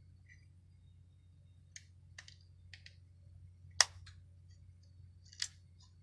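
Sharp mechanical clicks from a motor control panel's contactors and overload relay being worked by hand, about six in all, the loudest about four seconds in and another strong one near the end, over a low steady hum. The amber trip lamp goes out, so the tripped circuit is being reset.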